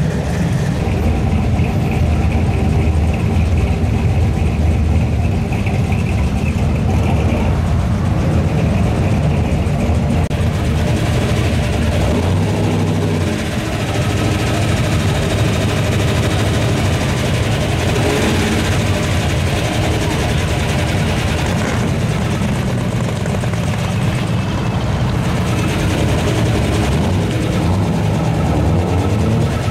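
Classic muscle-car engines running at low speed in slow, crawling traffic, a steady deep exhaust note, with a 1965 Pontiac convertible's engine passing close by in the second half.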